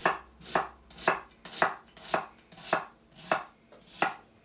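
Chef's knife slicing through an onion and striking a wooden cutting board, about eight even strokes at roughly two a second, stopping near the end.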